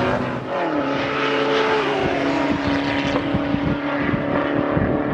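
A vehicle engine running steadily, its pitch dropping about half a second in as it eases off, then holding. Gusts of wind noise hit the microphone in the second half.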